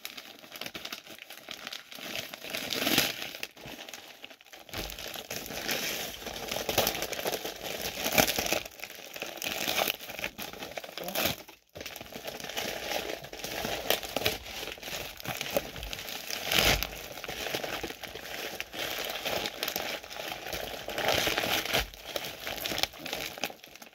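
Newspaper packing being crumpled and pulled apart by hand: continuous crinkling and rustling with louder crackles every few seconds, and a short break about halfway through.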